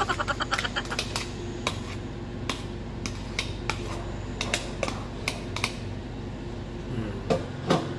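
Metal fork scraping and tapping inside a plastic food container, a string of irregular sharp clicks as leftover sauce is scraped out.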